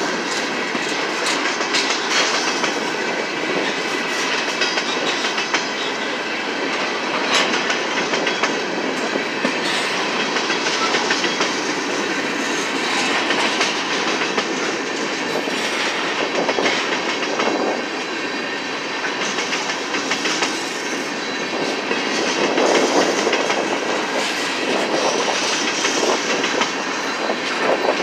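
CSX freight train's open-top hopper and gondola cars rolling steadily past, wheels clacking over the rail joints and crossing.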